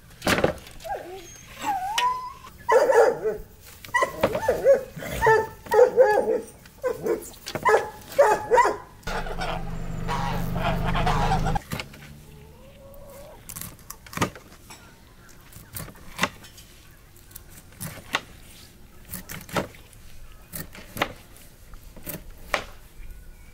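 A dog whining and yipping in short, pitched calls for the first several seconds, then a steady rush for a couple of seconds. From about halfway on, a kitchen knife chops crosswise through a fish onto a wooden cutting board: a sharp knock every second or two.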